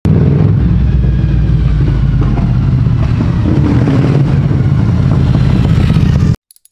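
Motorcycle engine running loud and steady under way, cutting off abruptly near the end.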